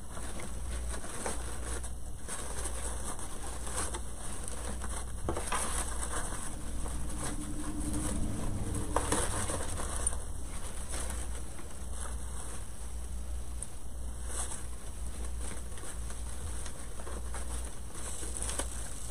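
Artificial greenery stems and plastic leaves rustling and crinkling as they are handled and pushed into a wreath arrangement, with scattered small clicks. A steady low hum runs underneath.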